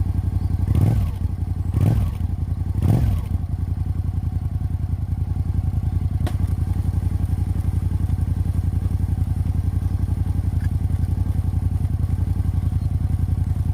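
Suzuki Gladius motorcycle's 645 cc V-twin idling steadily, with the throttle blipped three times in quick succession about a second apart near the start.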